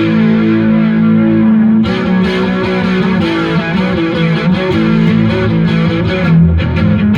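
Electric guitar, a Stratocaster, played through a Marshall MG100HDFX solid-state amp's crunch channel: a held distorted chord, then strummed distorted riffing from about two seconds in. It is really loud even with the master volume at zero, showing the big volume jump between the clean and crunch channels.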